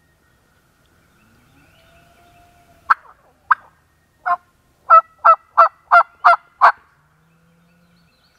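A series of turkey yelps on a hunter's turkey call: three single sharp notes, then a quick run of six at about three a second.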